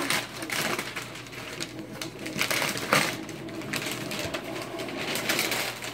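Christmas wrapping paper rustling and crinkling as a present is unwrapped and the cardboard box inside is handled, with irregular crackles, the loudest about three seconds in.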